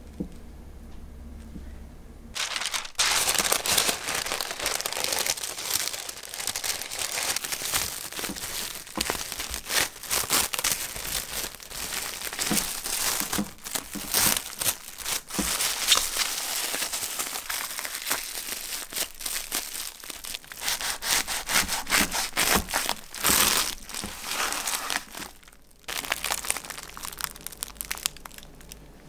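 Clear plastic sandwich wrap crinkling and rustling as hands fold and press it tightly around a thick sandwich. It starts about two and a half seconds in and stops a few seconds before the end.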